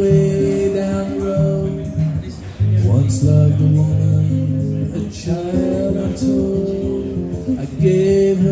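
Acoustic guitar strumming folk chords in a steady instrumental passage between verses.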